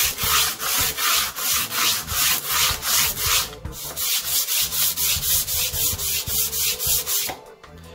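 Steel blade of a Stanley No. 4 hand plane rubbed back and forth on abrasive paper over a glass plate, sanding the rust off the blade. It goes in strokes at about two a second, with a brief pause about halfway, and stops abruptly shortly before the end.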